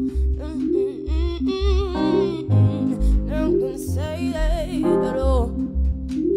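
Background music: a song with a singing voice over a steady bass line and guitar-like chords.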